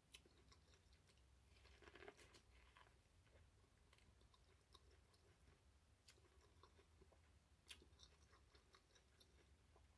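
Faint chewing and biting of kernels off an elote, corn on the cob coated in mayo, parmesan and Flamin' Hot Cheetos dust, with scattered small crunches and clicks. A slightly louder stretch of chewing comes about two seconds in.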